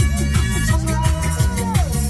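Dance music with a steady beat, heavy bass and a gliding synth melody.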